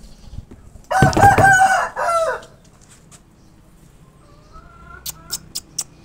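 A rooster crowing once, loud, starting about a second in and lasting about a second and a half, with a fainter crow later on. A few sharp clicks come near the end.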